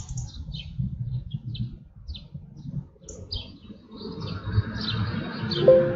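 Small birds chirping in the trees, short high chirps that slide downward, over a low rumble of wind on the microphone. A brief steady tone sounds near the end.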